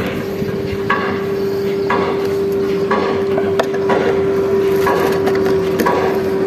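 Regular knocking, about one knock a second, over a steady hum.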